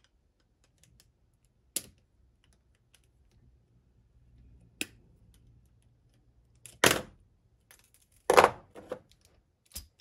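Sharp, separate metallic clicks and clacks of needle-nose pliers and small steel parts as a retaining ring is worked off the ball stud of a magnetic-base indicator holder. Two louder, longer clatters come in the second half.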